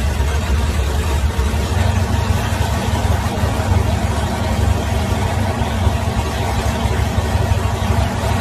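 Car engines idling steadily at a drag-strip starting line, a low, even engine note with no revving.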